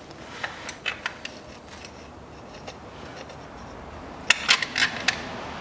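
Hard plastic clicking and knocking as a plastic cover under a car's fuel filter is handled and pushed into place, with a quick cluster of sharp, louder clicks about four to five seconds in.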